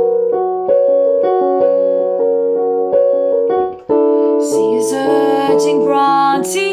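Piano playing slow, steady chords with a short break about four seconds in.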